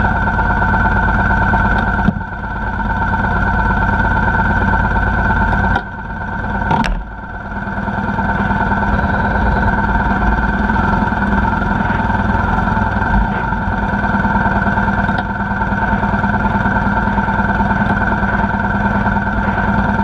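Motorcycle engine running steadily at a low idle close by, with brief dips in level about two seconds in and again around six to seven seconds in.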